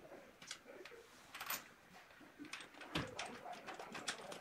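Faint clicks and light metal taps as a steel washer and nut are set onto a threaded rod through a wooden sanding drum, with a sharper knock about three seconds in.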